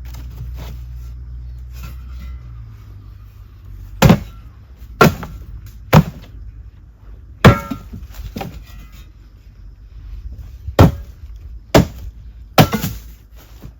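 A run of about seven sharp knocks or blows, roughly a second apart with a longer pause in the middle, each with a short ringing tail. A low steady hum fades out in the first few seconds.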